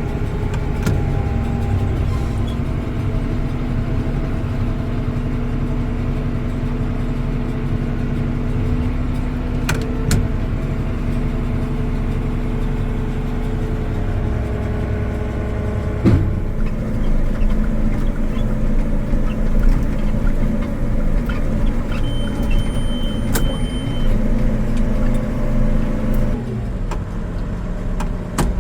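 Swather's engine and machinery running steadily under load while cutting, with scattered clicks and a sharp knock about halfway through. A brief high steady tone sounds for about two seconds past the three-quarter mark.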